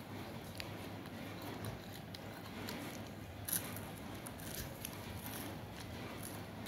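A child nibbling and chewing a snack: faint crunching with scattered small clicks, one a little louder about three and a half seconds in.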